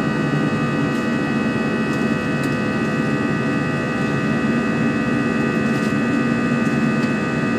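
Airbus A320's jet engines in flight, heard inside the cabin: a steady low drone under a steady high whine.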